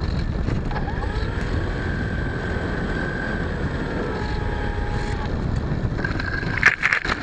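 Wind buffeting the onboard camera of a small radio-controlled plane over the whine of its motor, which glides up and down in pitch. Near the end, a run of bumps and scraping as the plane touches down and skids across grass and dirt.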